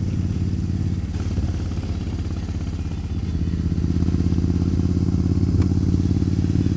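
2003 Suzuki Intruder 1400's V-twin engine running steadily through Vance & Hines Classics II pipes while riding. The note grows a little louder and fuller about three and a half seconds in.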